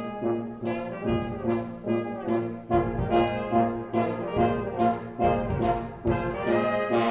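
A street brass band playing a tune: sustained horn notes over steady percussion hits, about two and a half beats a second.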